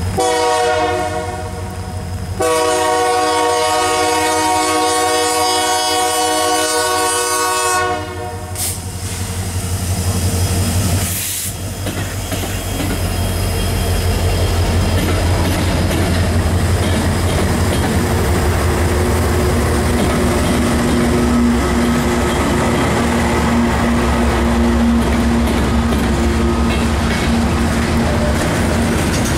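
Union Pacific diesel locomotive's air horn sounded for the grade crossing: a short blast, then a long blast of about five seconds. The locomotives then pass close by with a deep engine drone, followed by covered hopper cars rolling past with a steady clickety-clack of wheels over the rail joints.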